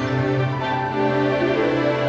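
Background music: sustained instrumental notes with slow melodic changes.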